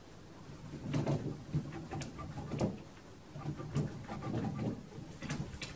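A cloth scrubbed hard back and forth on a door handle, in irregular rubbing strokes about once or twice a second.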